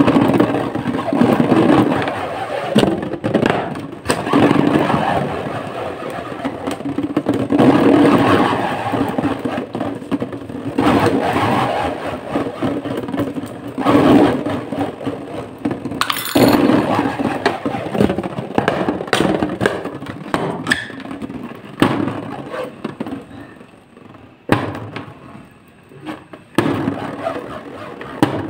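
Fingers rubbing and squeezing a latex balloon: rubbery scraping and crackling in swells every few seconds, with sharp clicks between, growing sparser near the end.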